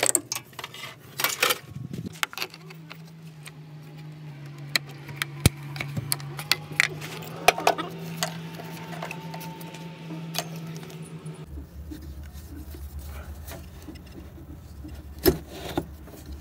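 Scattered clicks, knocks and rubbing of hands and tools working loose hoses, clamps and fittings on a mini-truck's engine, over a steady low hum that drops lower suddenly about eleven seconds in.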